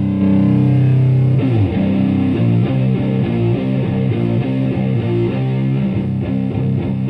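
Distorted electric guitar: a Stratocaster through a ProCo Rat–style distortion pedal into a Marshall Plexi head and 4x12 cabinet. A held chord drops in pitch about a second and a half in, and a fast riff of short notes follows.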